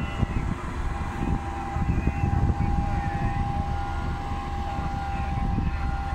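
Diesel engine of a CAT single-drum roller compactor running as the machine drives across the stockpile base, a steady low rumble with a thin steady whine that comes in about a second in.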